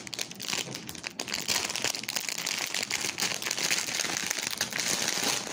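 Plastic packaging crinkling and rustling as it is handled, a continuous run of small crackles.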